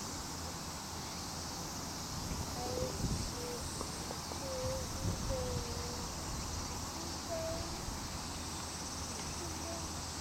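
Steady high-pitched insect chorus from the trees around the pitch, with a few short, faint calls from distant voices between about two and nine seconds in.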